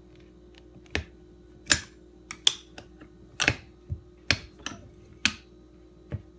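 Sharp metallic clicks and snaps from a metal machine's mechanism, about a dozen at irregular spacing, over a faint steady hum.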